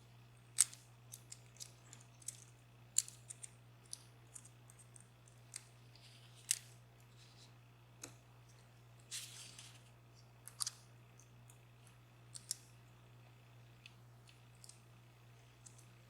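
Scattered sharp metallic clicks and small taps of hand tools working on a DOM Plura lock cylinder as it is taken apart, with a brief scrape about nine seconds in.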